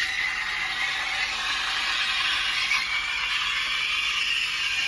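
De'Longhi espresso machine's steam wand hissing steadily into milk in a stainless steel pitcher, with a tone in the hiss that climbs slowly in pitch as the milk heats.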